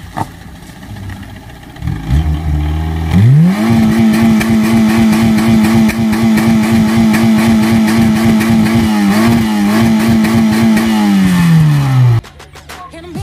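A car engine revved up quickly and held at high, steady revs for about eight seconds, wavering once, then dropping back down and stopping abruptly near the end.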